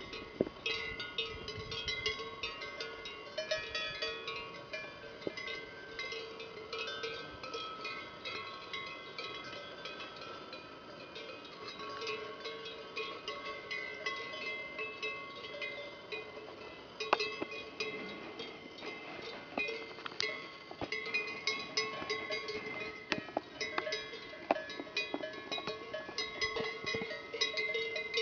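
Bells worn by grazing cows clanking irregularly, several bells of different pitches ringing at once.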